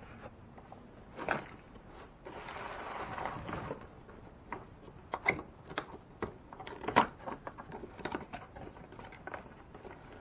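Hands handling the kayak's fittings and the transducer cable: a knock, a scraping rustle about two seconds in lasting a second and a half, then a run of irregular sharp clicks and knocks.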